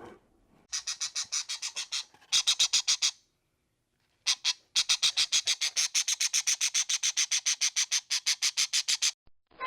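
An animal's rapid chattering call: short high-pitched pulses about eight a second, coming in bouts that break off about two seconds in and again for about a second near the middle, then run on steadily.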